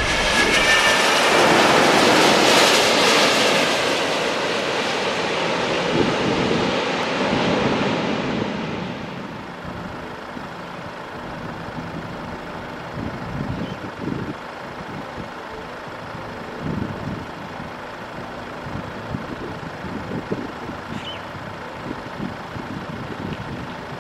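Twin-engine wide-body jet airliner, landing gear down, passing low overhead on landing approach. Its engine noise swells to a peak with a high whine a couple of seconds in, then slides lower and fades by about nine seconds in. After that comes a steady hiss of heavy rain and wind with occasional gusts thumping on the microphone.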